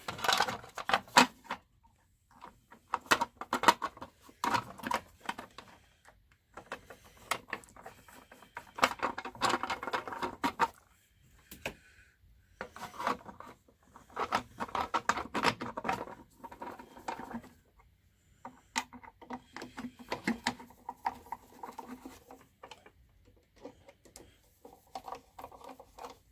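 Hand work on a belt sander's cover: irregular clicks, knocks and rubbing as the cover is fitted back on and fastened, with short pauses between.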